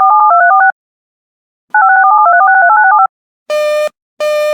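Two quick strings of telephone touch-tone (DTMF) digits, each a rapid run of two-note beeps. About three and a half seconds in, a repeating buzzy beep like a telephone busy signal begins.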